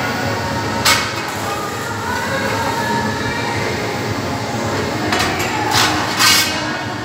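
Steady rumble of workshop machinery, with metal clanking and scraping on a steel plate: a sharp clank about a second in and three short scrapes or clanks near the end.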